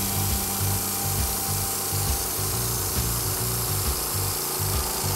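Logosol B1001 band sawmill running and cutting through a pine log: a steady engine drone under the hiss of the band in the wood.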